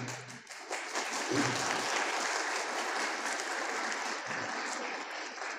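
Audience applauding in a hall, starting about a second in and going on steadily.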